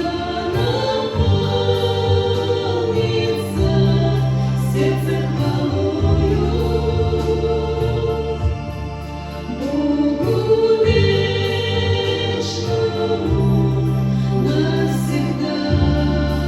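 A slow hymn played on an electronic organ: held chords over a bass line that moves to a new note every couple of seconds, with a sustained melody above.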